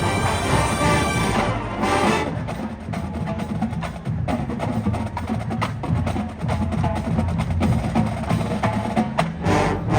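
Marching band playing a heavy-metal arrangement. About two seconds in, the full ensemble drops away to a percussion passage of sharp, clicking hits, and the full band comes back in near the end.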